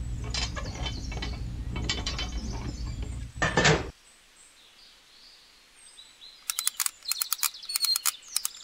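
A small screwdriver driving a screw into the toy tractor's front, heard as a run of quick, sharp clicks in the last two seconds. Before it, a low steady hum with light handling clicks runs for about four seconds and ends in a short burst of noise.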